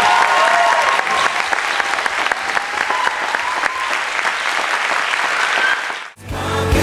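Congregation applauding, with a few voices cheering over the clapping. About six seconds in the applause cuts off abruptly and a Christian song with singing begins.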